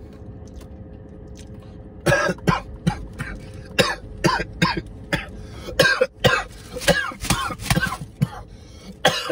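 A man coughing hard, a long run of sharp coughs beginning about two seconds in, as he chokes on a mouthful of grilled cheese sandwich.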